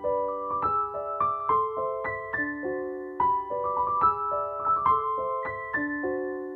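Background piano music: a gentle melody of sustained notes played several per second.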